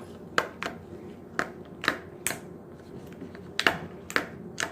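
Slime being poked and squeezed in a small jar, giving about eight sharp, irregular clicking pops.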